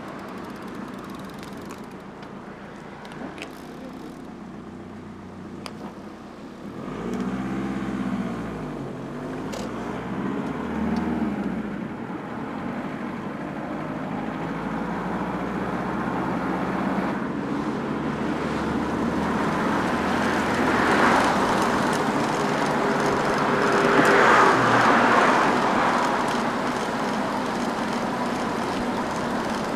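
Car engine and road noise. The engine pitch rises and falls a few times about a quarter of the way in, then the road noise builds, with two louder swells near the end.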